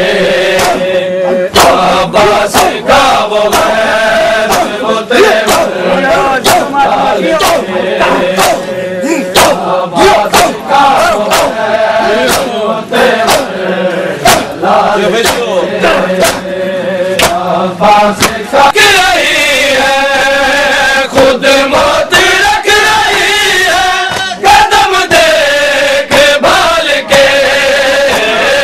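A crowd of men chanting a Shia noha together, with many sharp slaps of hands beating on chests (matam) among the voices. The chanting grows fuller and louder about two-thirds of the way in.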